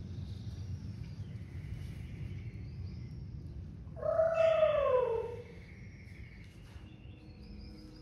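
A person's voice giving one long wailing cry about four seconds in, its pitch rising slightly and then sliding down over about a second. Before it, a low steady rumble.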